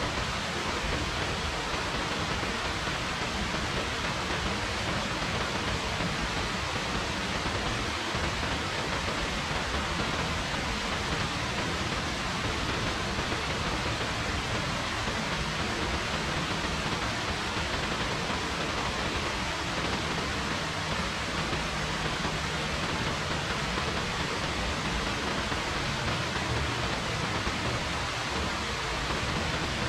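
Rain falling steadily, an even continuous hiss.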